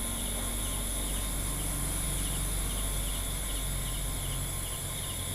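Insects, likely crickets, chirping: short chirps repeating a few times a second over a steady high-pitched hiss, with a low hum underneath.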